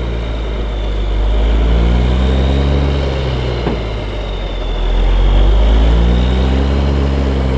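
Diesel engine of a loaded tandem-axle gravel dump truck running close by, its pitch rising and falling as it is revved, louder about five seconds in.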